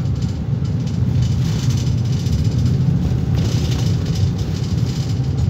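Steady low rumble of a bus in motion, heard from inside the cabin: engine and road noise.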